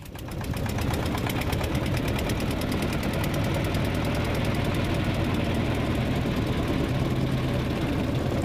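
A small engine on a wooden boat running steadily, with a fast, even knock.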